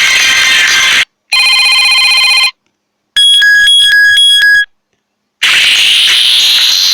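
Samsung Galaxy J7 Pro ringtones and alert tones played back to back, each cut off by a brief silence. First the end of one tune, then a short steady electronic tone, then a tone pulsing about four times, and a new tune starting about five seconds in.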